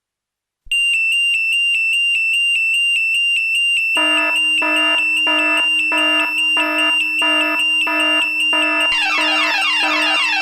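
Synthesized electronic emergency alarm: a high, rapidly pulsing tone starts just under a second in. A lower tone joins it about four seconds in, pulsing about one and a half times a second, and denser layers pile on about nine seconds in.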